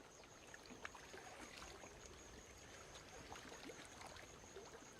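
Near silence: a faint background hiss with a few soft ticks and a thin, steady high-pitched tone.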